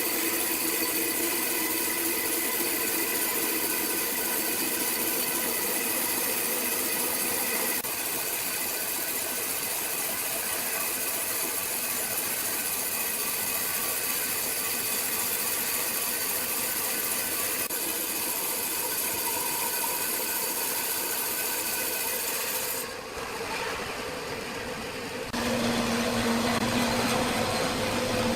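Power saw running steadily through wood, a continuous whine with hiss. Near the end the cutting sound drops away briefly, then a louder machine hum with a low steady tone starts up.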